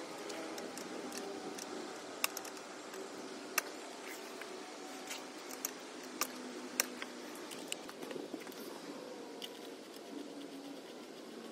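Scattered sharp clicks and taps of hand work with a screwdriver on black plastic pond pipe fittings, over a faint steady background hum.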